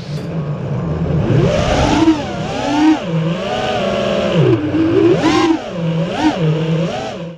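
Radio-controlled car's motor revving up and down over and over, its pitch rising and falling in quick surges.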